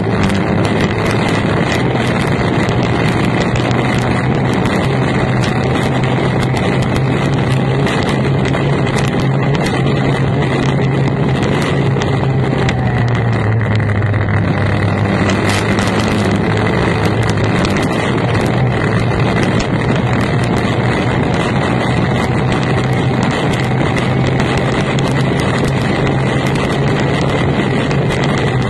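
Formula 1 tunnel boat's outboard racing engine running at speed, heard onboard with wind noise on the microphone. The engine note dips for a moment about halfway through, then comes back up.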